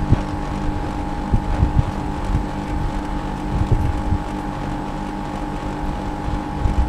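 Daikin inverter split-system outdoor unit running with its service cover off: the compressor and condenser fan make a steady hum with a held whine over it, and there are irregular low thumps.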